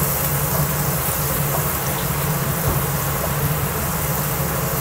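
Sliced onions, dried chillies and curry leaves frying in oil in a wok, sizzling steadily as they are stirred with a wooden spatula, over a steady low hum.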